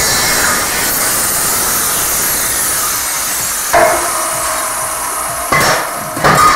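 Angle grinder with a cut-off disc cutting through steel box tubing, a steady loud grinding hiss that eases off as the cut finishes after about three seconds. The cut tube then drops onto the steel bench with a ringing metal clang, followed by a couple of shorter metal knocks near the end.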